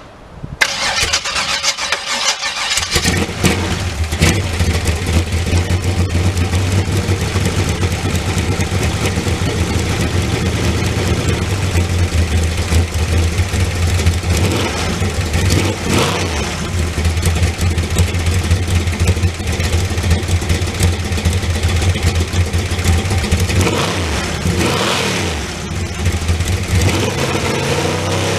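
Carbureted hot rod V8 engine cranked on the starter, catching after about two seconds, then running with a steady low beat and occasionally blipped by hand at the carburetor.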